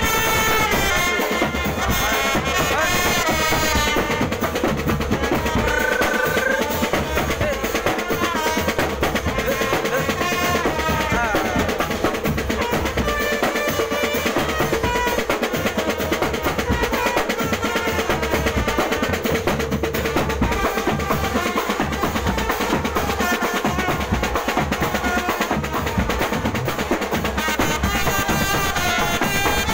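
Marching drum band playing: snare drums, bass drums and cymbals keep a steady beat under a melody played on trumpets.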